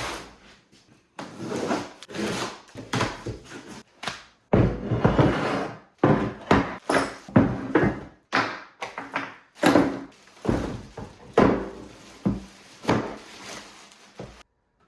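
A run of irregular clunks, knocks and short scrapes as hard objects are handled and set down.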